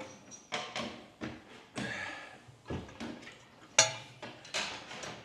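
Engine crane being raised, with a series of sharp metal clunks and knocks from the hoist and the engine it carries, spaced about half a second to a second apart.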